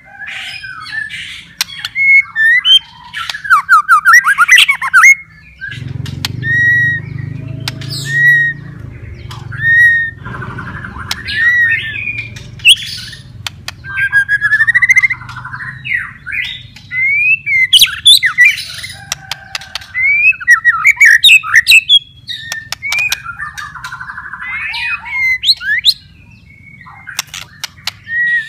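White-rumped shama in full song: a loud, varied run of whistled notes, quick trills and sharp clicks, delivered in short phrases with brief pauses between them.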